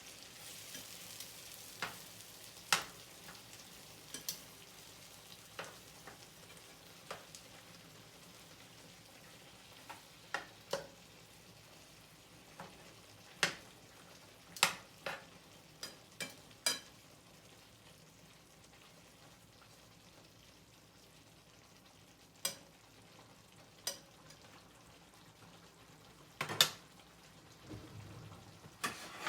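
Eggplant and tomato sauce simmering down in a frying pan, sizzling faintly, with sharp pops and taps at irregular intervals; the loudest come about two and a half seconds in, midway, and near the end. The sauce is being reduced in the tomatoes' own juice.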